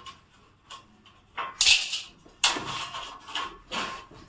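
Hand tin snips cutting a sheet-metal false-ceiling frame channel: about four sharp metallic snips and crunches, the loudest about a second and a half in.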